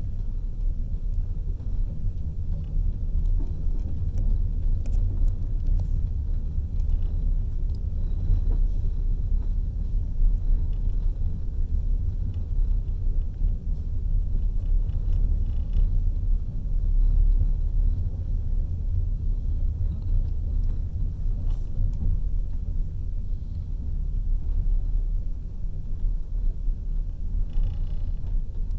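Steady low rumble of a moving passenger train heard from inside the carriage, with a few faint clicks over it.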